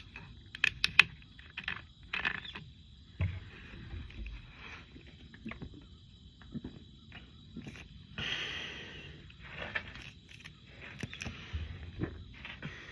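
Someone chugging carbonated soda from a 2-liter plastic bottle: irregular gulps and swallows, with a few sharp clicks of the bottle being handled about a second in and a short hiss about eight seconds in.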